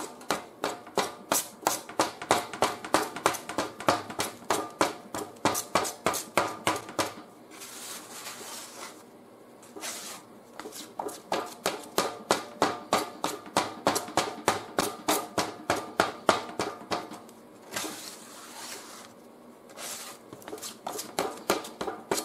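A spreader scraping and smearing fiberglass-reinforced body filler across a mixing board, working in the hardener and spreading it out thin to drive out air bubbles. Runs of short scrapes at about three a second, broken twice by a few seconds of softer smearing.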